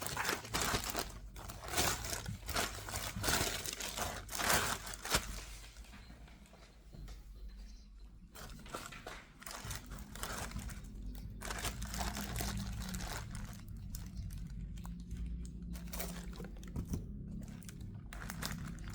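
Shoe-box packaging crinkling and rustling as it is handled and pulled open. The rustling is busiest for the first six seconds, then comes in scattered bursts.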